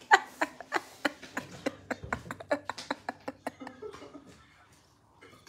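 A rapid, irregular run of sharp clicks, about four a second, loud at first and fading away over about four seconds.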